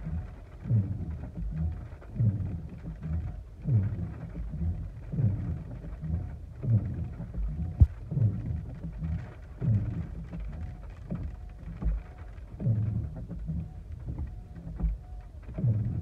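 Car windshield wipers sweeping across wet glass in steady rain, a low swish repeating about every second and a half, heard from inside the car.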